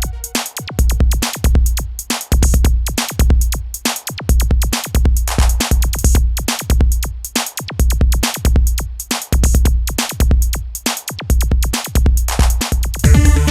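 Electronic music played on a Novation Circuit Tracks groovebox: a drum-machine pattern of heavy, evenly spaced kick-and-bass pulses under fast hi-hat ticks. Near the end a pitched synth line comes in.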